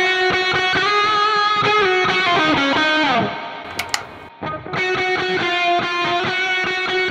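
Distorted electric guitar through a NUX Cerberus multi-effects pedal, playing a rhythm of held chords. About three seconds in the notes slide down in pitch and die away, a footswitch clicks as the boost is switched off, and the riff starts again about a second later.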